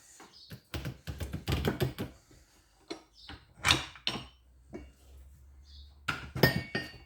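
Metal press parts and spacers knocking and clinking in irregular clusters while a bush is set up and pressed in a hydraulic press.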